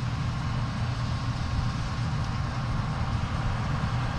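Steady drone of a farm vehicle's engine running at a constant speed, heard from inside the cab.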